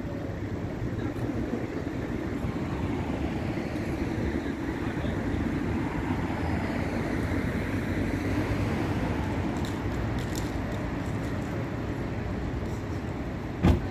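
Steady city street noise with vehicle engines running, and a sharp knock near the end.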